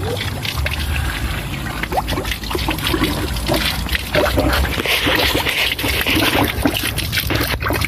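Spring water running continuously from a plastic pipe outlet and splashing onto wet rocks, with many small gurgling plinks; the splashing grows louder about five seconds in.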